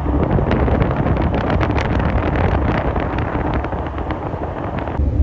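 Wind buffeting the microphone with rapid crackling over a steady low rumble; the crackling stops abruptly near the end.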